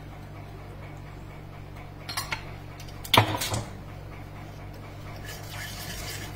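Slotted metal spatula knocking against a frying pan while stirring chilli powder into oil: a couple of light clinks about two seconds in and a louder clank just after three seconds, over a steady low hum.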